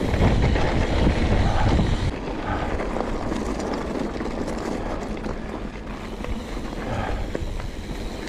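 Wind buffeting the action camera's microphone while a Trek Remedy mountain bike rolls along a dirt and gravel trail, with steady tyre rumble and rattle from the bike over the ground.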